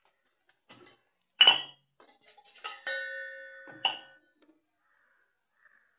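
Stainless-steel kadai clanking against the gas-stove burner as it is set down: a few sharp metal knocks, the loudest about a second and a half in, and two near the three-second mark that ring on with a clear metallic tone for about a second.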